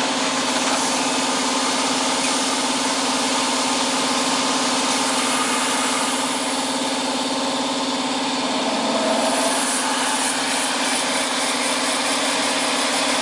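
CTP (computer-to-plate) plate-making machine running as it feeds a printing plate through its rollers: a steady mechanical hum with a constant low tone and hiss. A higher note briefly joins about nine seconds in.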